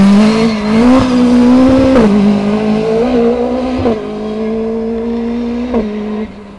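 Mk2 Ford Escort rally car engine under hard acceleration, pulling away up the road. The engine note dips briefly about two and four seconds in, then grows quieter as the car draws away.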